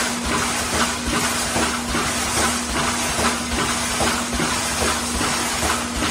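Wire mesh welding machine (CANDID GWC2500) running through its weld cycles: a short clatter and hiss repeats a little more than once a second over a steady electrical hum.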